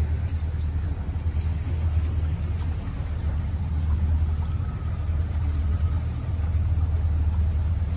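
Tour boat's outboard motor running steadily at low idle speed, a constant low hum.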